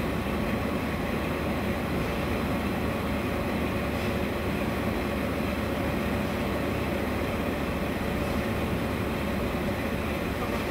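Floating jet aerator running steadily: the even hum of its vertical electric motor over the churning, rushing water it drives through the tank.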